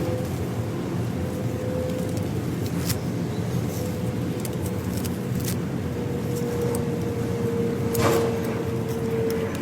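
Hoover vacuum cleaner motor running steadily with a constant whine, and a few short knocks about 3, 5.5 and 8 seconds in.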